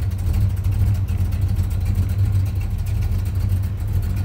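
1973 Dodge Dart's 383 big-block V8 with a mild cam, idling steadily with a low rumble.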